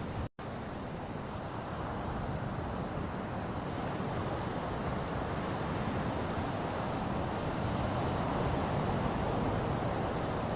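Ocean surf washing steadily, swelling slowly louder later on, with a brief cut to silence just after the start.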